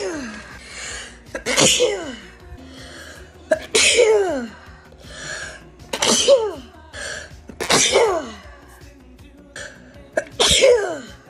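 A rapid run of about six loud sneezes, one every two seconds or so, each a sudden burst whose voiced 'choo' falls steeply in pitch.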